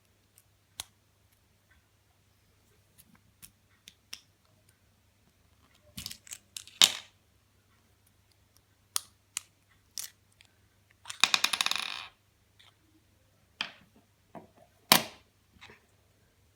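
Small hard clicks and taps from a fidget spinner and its parts being handled, with a rapid rattle of quick clicks lasting about a second, about eleven seconds in.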